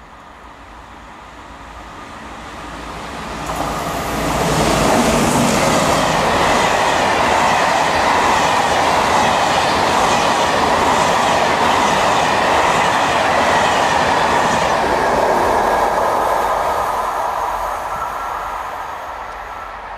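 Corail Intercités passenger train passing at speed: the sound of the wheels on the rails builds over the first few seconds, stays loud and steady with a regular clatter for about ten seconds as the coaches go by, then fades away near the end.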